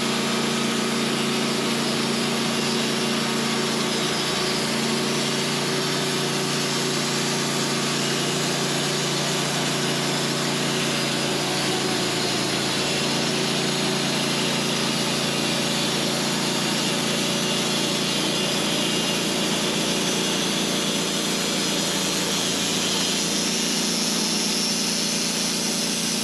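Manual sawmill running under load, its engine holding a steady pitch while the blade cuts lengthwise through a large white pine log to take a 6 by 8 off the top.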